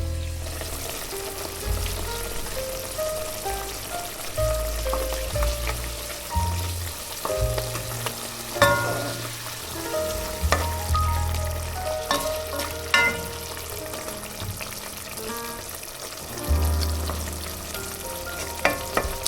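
A steady hiss that starts abruptly and holds, with a few short clicks, over soft melodic background music.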